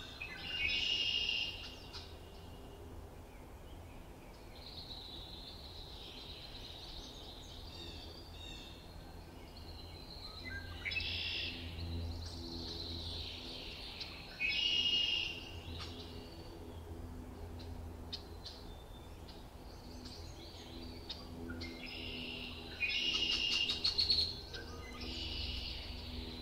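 Wild songbirds singing in short, high warbling phrases a few seconds apart, the loudest about a second in, around fifteen seconds in and near the end, over a faint steady low hum.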